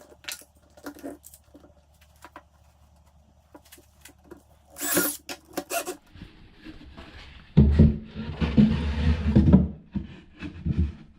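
Plywood pieces being handled: light wooden taps and knocks, then a louder stretch of wood rubbing and scraping against wood, as a shelf and its lip are fitted into a plywood cabinet.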